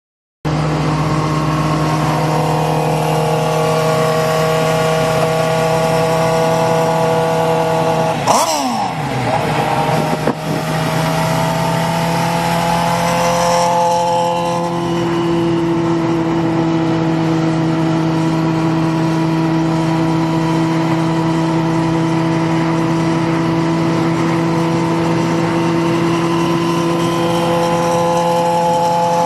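Steady drone of engines and road noise at cruising speed, heard inside a car's cabin while a Suzuki GSX-R600 sportbike runs alongside. About eight seconds in a short rush of noise comes with a steeply falling whine.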